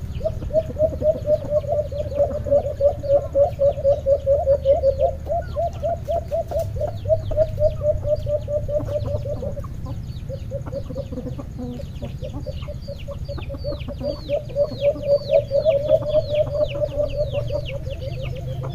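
Caged decoy doves (alimokon) calling: a long fast run of low hoo notes, about six a second, then after a brief break halfway through a second run. Quick, high, downward chirps from another bird join in near the end.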